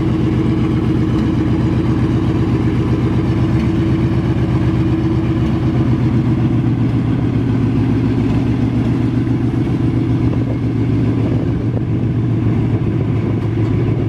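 M4 Sherman tank's engine running as the tank drives slowly and turns on grass, a steady low engine note that settles slightly lower about halfway through.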